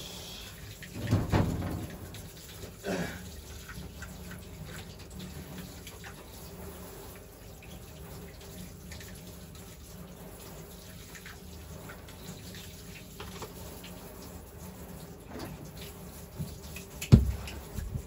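Kitchen tap running steadily into a metal sink while dentures are scrubbed by hand under the stream. A few louder knocks against the sink come about a second in and again near the end.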